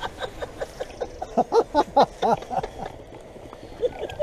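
People's voices in a run of short pitched bursts in the middle, after a few light clicks at the start.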